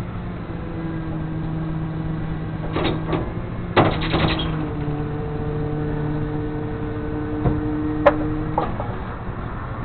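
A vehicle engine runs steadily with a low hum, joined by a couple of steady higher tones for most of the stretch. A few sharp knocks and a short clatter come about three to four seconds in, and single clicks come near the end.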